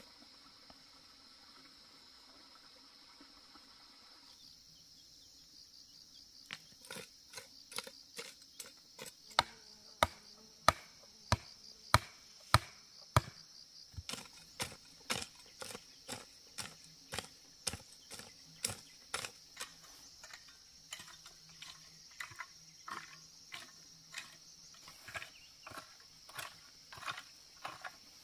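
Steady high insect drone. About six seconds in, a hand tool starts striking over and over, roughly three sharp blows every two seconds, loudest in the middle, the rhythm of someone chopping or breaking up ground.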